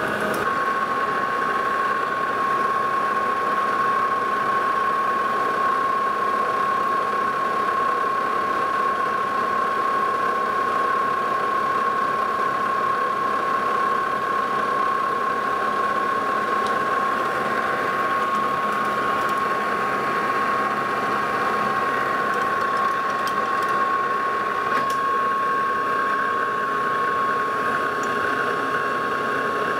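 Metal lathe running steadily under power during internal thread-cutting passes, its gear train giving a constant high whine.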